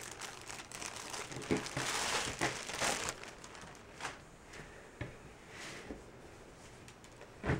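Clear plastic poly bag crinkling as a folded T-shirt is pulled out of it, loudest about two seconds in, followed by a few fainter rustles and taps.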